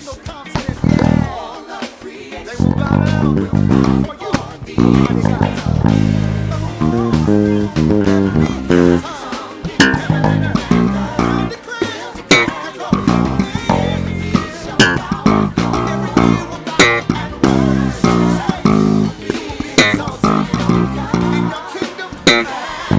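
Electric bass guitar (ESP LTD B-155DX five-string) playing a busy, fast-moving gospel-funk bass line along with the band's recorded track.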